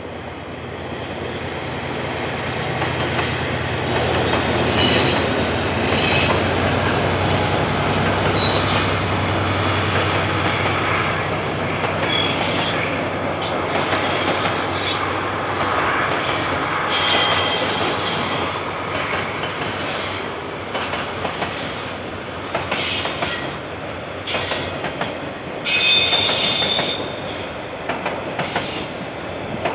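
KiwiRail diesel-hauled train passing: a steady locomotive engine hum for the first ten seconds or so, then a long string of wagons rolling by, clicking over the rail joints with several brief high wheel squeals, the loudest one near the end.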